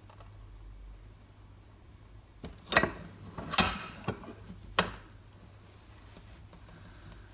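Quick-release bench vise being worked by its sliding handle to press a transponder aerial onto an ignition lock barrel, giving a few sharp metal clanks in the middle, the loudest ringing briefly.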